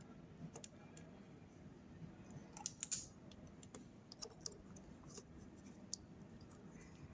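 Faint scattered clicks and small crackles as a fuse is desoldered from a circuit board: the soldering iron and tweezers working the joint while the flux smokes. The loudest cluster of clicks comes a little under three seconds in, with a few single ticks after it.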